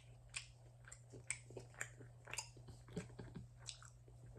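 Faint, close-up chewing of a chicken and cheese quesadilla: irregular soft wet clicks and smacks of the mouth, about one or two a second.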